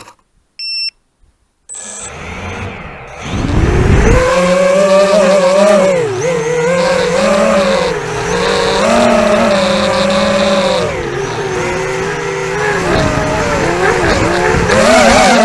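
A short electronic beep, then a ZMR250 quadcopter's four DYS 2204 brushless motors with tri-blade props spool up with a rising whine about three and a half seconds in. They then run loud and steady, the pitch wavering up and down as the throttle changes in flight, heard through the onboard action camera's microphone.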